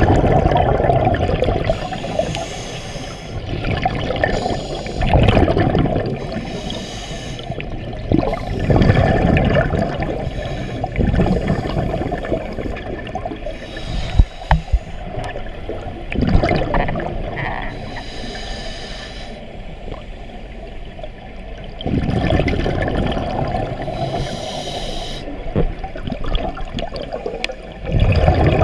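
Scuba divers breathing through their regulators underwater: bursts of exhaled bubbles rumbling and gurgling every few seconds, with short hissing between them.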